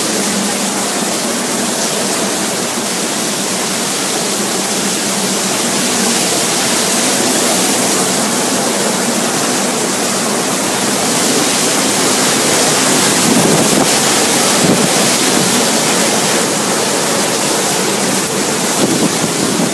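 Hurricane wind with driving rain: a loud, steady rush that swells in a gust past the middle.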